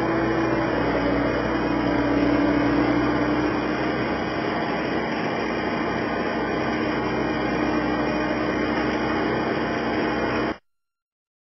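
Skid steer loader's engine running steadily, a dense mechanical noise with a low hum whose pitch dips slightly a couple of seconds in. It cuts off suddenly near the end.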